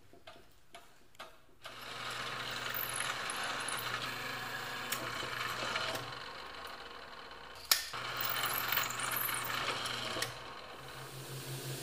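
Drill press motor running steadily, with a few light taps before it starts. A single sharp click comes about two-thirds of the way in, and the running dies down near the end.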